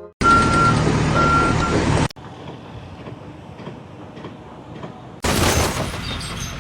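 A heavy vehicle running, its reversing alarm giving two long beeps at one pitch during the first two seconds. The sound then drops abruptly to quieter rumbling noise, and loud noise returns near the end.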